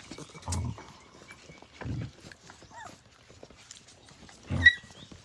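Australian cattle dog puppies playing close to the microphone: a few short low thumps and scuffles, and a brief high squeak about four and a half seconds in.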